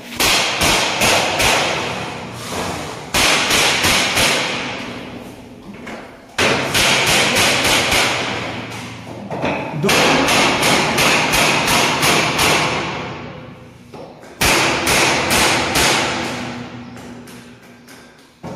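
Rapid hammer knocks on a window frame, several a second, in about five runs of a few seconds with short breaks, ringing in a bare, empty room.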